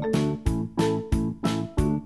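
Background music: a keyboard tune with a steady beat, about three beats a second.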